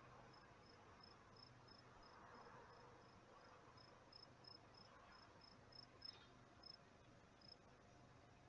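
Faint cricket chirping: short high-pitched chirps repeating about three times a second over low hiss, with a couple of faint clicks a little past the middle.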